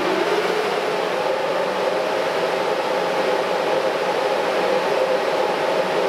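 HP 9000 rp7410 server's cooling fans running at full speed after power-on: a loud, steady whir with a hum in it, settling in pitch about a second in.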